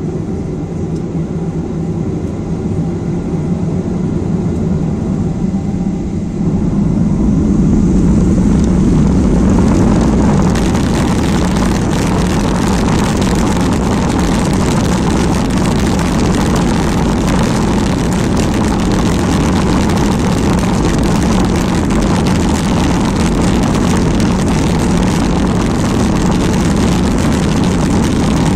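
Boeing 737-800's CFM56 jet engines spooling up to takeoff thrust, heard inside the cabin over the wing. A low hum grows louder about six seconds in, then turns into a steady loud rush of engines and runway rumble as the jet accelerates down the runway.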